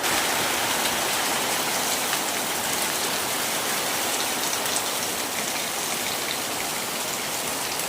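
Rain falling steadily, a dense even hiss of drops that swells suddenly at the start and then holds.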